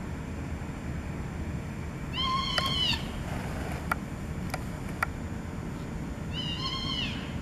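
Mule deer fawn bleating in distress as coyotes threaten it: two mewing bleats about four seconds apart, each under a second and bending slightly up then down in pitch. A few faint sharp clicks fall in between.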